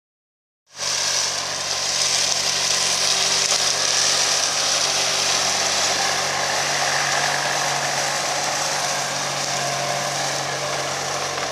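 A 100 hp Fendt tractor running steadily under load while working a Dyna-Drive soil cultivator and a front-mounted implement through a rye cover crop: an engine hum under a steady hissing, churning noise from the implements and cut crop. It starts abruptly just under a second in.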